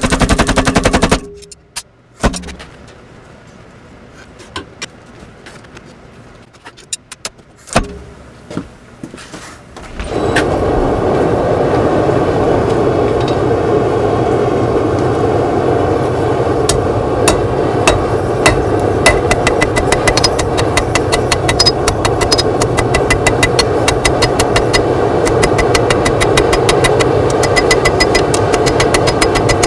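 A steel power hammer's rapid blows stop about a second in, followed by a few scattered knocks. From about ten seconds in, a loud steady machine drone runs under a quick series of light hand-hammer strikes on hot steel on the anvil.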